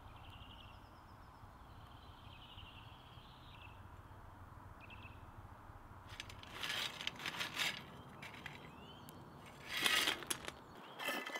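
Faint bird chirps over a low background hiss, then several short noisy bursts: a cluster around six to eight seconds in and a louder one near ten seconds.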